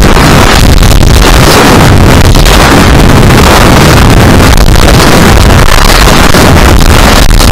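Loud, steady wind rush buffeting the microphone of a camera riding on a high-power rocket in flight, so loud that the recording sits at full level throughout.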